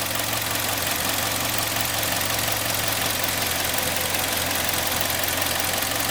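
Freshly rebuilt Kia G4KD 2.0-litre four-cylinder petrol engine idling steadily, warmed up, with the light rustling tick of its fuel injectors as the only noise over the running.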